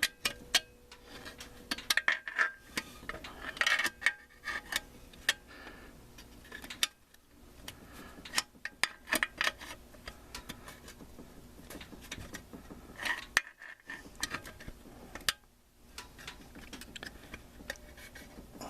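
Steel snap ring and screwdriver clicking and scraping against the metal of a 4L60E transmission as the ring is pressed down into its groove above the low roller housing. Scattered sharp metallic clicks, with short scraping spells about two, four and thirteen seconds in.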